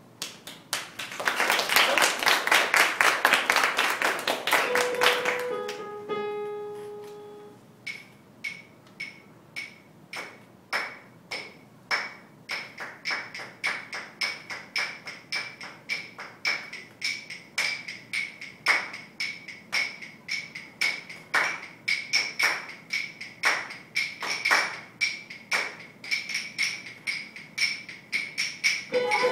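Instrumental introduction on hand percussion and piano. First comes a rapid rattling shake for a few seconds, then a couple of piano notes, then small hand percussion struck in a steady beat of about two strikes a second, each strike with a high ringing tone.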